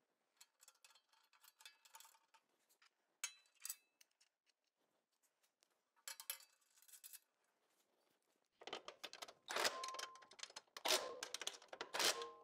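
Light metal clinks of bolts and a socket wrench against a steel shelf and stand column, then, from about nine seconds in, a longer run of rapid clicking and clattering as the bolts are tightened with the socket wrench.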